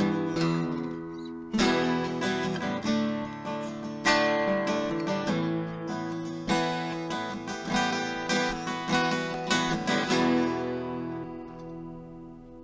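Acoustic guitar music, strummed chords, fading out near the end.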